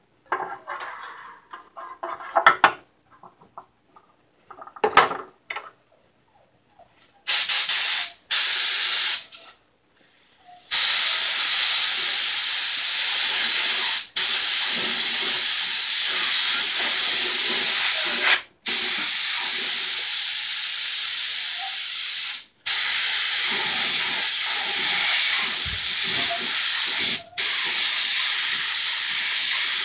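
Compressed-air gravity-feed spray gun hissing as it sprays clear coat: two short bursts, then long, nearly continuous passes broken by a few brief trigger releases. Before the spraying there are a few light knocks.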